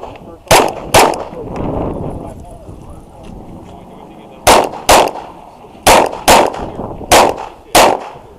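Glock 34 9mm pistol firing eight shots in quick pairs, the two shots of each pair about half a second apart: a pair, a gap of about three seconds, then three more pairs in close succession.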